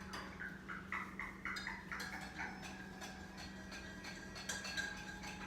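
Pet parrot calling: a quick run of short chirping notes, then a longer held note, with a few light ticks.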